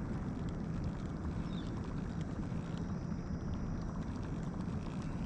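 Steady low rumble of wind on the microphone, with faint light ticks above it.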